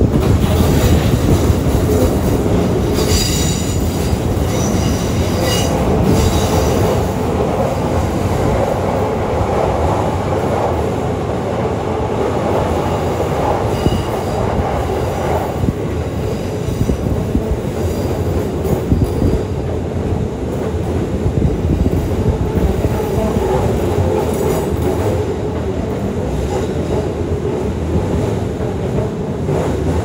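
Electric train on the Keikyu line running past close by, a steady loud rumble with high wheel squeal in the first several seconds and again briefly around the middle.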